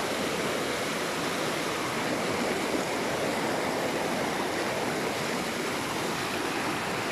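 Small flood-swollen river rushing fast over rocks, a steady wash of turbulent muddy water.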